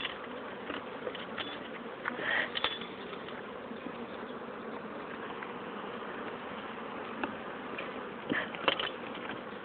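Honey bees buzzing steadily in a dense swarm around an opened hive, stirred up and turning aggressive after being smoked. A few sharp knocks sound about two and a half seconds in and again near the end.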